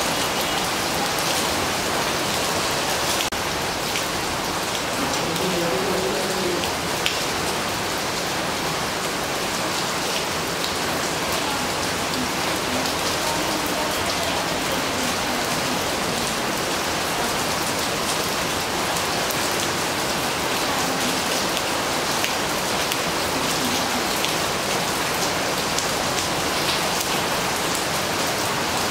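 Gentle rain falling steadily on the leaves of a flowering shrub: a dense, even patter with scattered sharper drop ticks.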